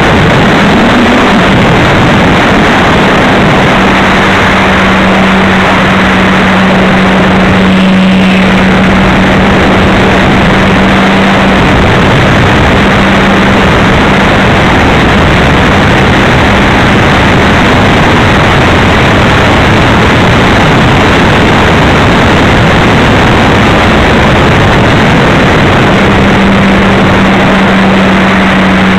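RC airplane's motor and propeller running in flight, picked up by its onboard camera: a loud, steady drone with a constant hum under a rush of wind noise. The hum weakens through the middle and comes back strongly near the end.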